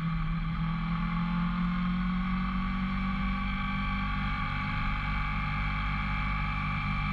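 Background music: sustained, droning guitar-like tones through effects, held steady with no beat.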